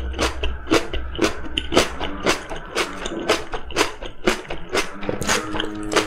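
Close-up chewing of soft steamed kabocha squash over background music. Sharp clicks come evenly, about twice a second.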